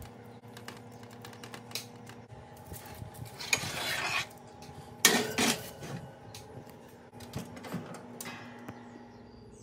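Foil-lined metal baking tray scraping and clattering as it is slid back onto the oven rack, with the loudest knock about five seconds in, followed by softer clicks and knocks as the oven door is closed. A faint steady hum runs underneath.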